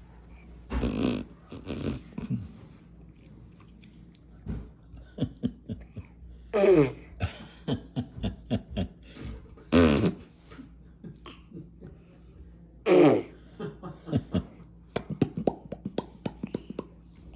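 Baby vocalizing: four loud squeals that each slide down in pitch, with short sputtering pops and smacking sounds between them, a quick run of them near the end.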